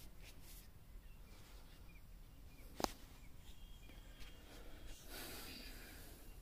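Faint outdoor field ambience with a few faint high chirps, a single sharp click about three seconds in, and a brief breathy rush of noise near the end.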